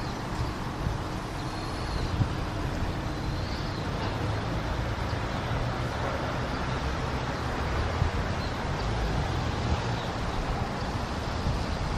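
Steady city street traffic noise: a continuous low rumble of road vehicles.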